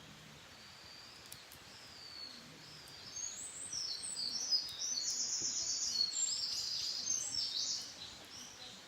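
A wild songbird singing one long, rapid, high song full of trills, starting about three seconds in and stopping shortly before the end.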